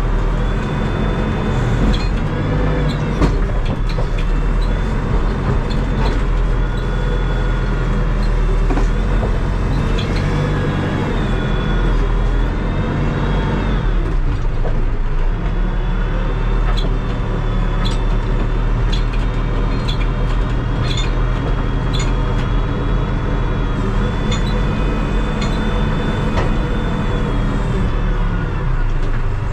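Terex TLB-815 backhoe loader's diesel engine running with a steady drone that briefly drops about halfway through, under a high whine that comes and goes and scattered sharp clicks and knocks.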